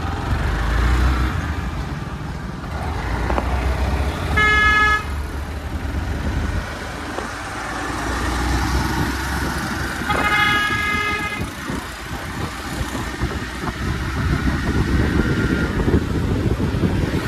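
Wind and road rumble while riding a two-wheeler through town traffic. A vehicle horn honks twice in one steady note: briefly about four seconds in, and longer about ten seconds in.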